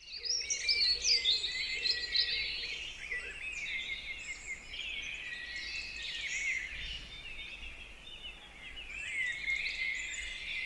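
Several small birds singing at once, a busy chorus of quick, high chirps and trills, over a faint low rumble.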